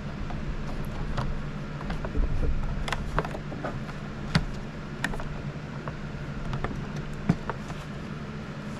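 Scattered light clicks and knocks of plastic parts being handled and fitted together, over a steady low hum.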